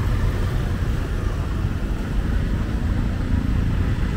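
City street traffic noise: a steady low rumble of vehicles.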